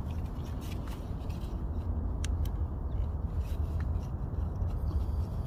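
Small plastic clicks and rubbing as gloved hands work a headlight bulb's wiring connector loose by its locking tab, over a steady low rumble.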